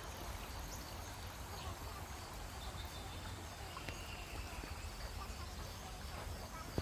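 Outdoor woodland ambience: a steady low rumble and faint hiss, with a few faint, short, high chirps.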